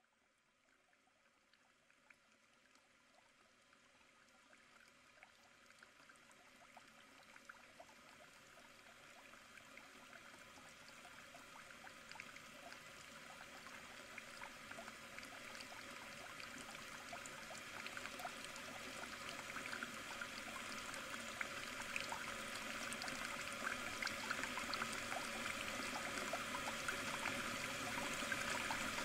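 A trickling, water-like hiss full of small crackles, fading in from silence and growing steadily louder.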